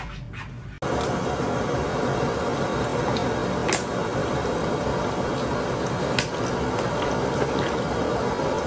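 Hot oil sizzling steadily as squid deep-fries, starting abruptly about a second in, with a couple of sharp pops.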